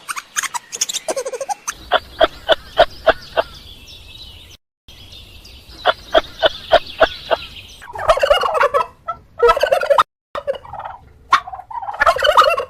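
Farmyard fowl calling: two quick rattling runs of notes, about five a second, then harsher squawking calls near the end.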